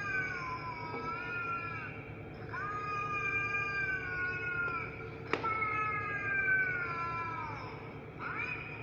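Kitten meowing in long drawn-out calls, about three in a row, each sliding down in pitch at the end. A steady hum runs underneath, and a sharp click comes about five seconds in.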